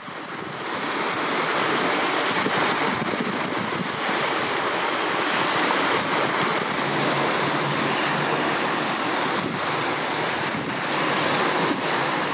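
Choppy sea waves washing and wind buffeting the microphone, a steady rush of noise that fades in over the first second or so.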